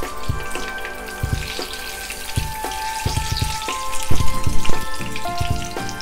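Batter-coated banana deep-frying in hot oil in a small wok, sizzling steadily, over background music with a few stronger low thumps about four seconds in.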